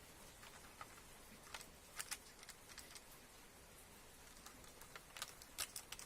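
Faint scattered light clicks and taps: two about two seconds in and a quick cluster near the end, over a low background hiss.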